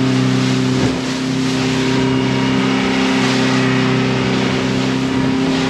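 Motorboat engine running steadily at cruising speed, a constant low drone with a rush of water and wind over it.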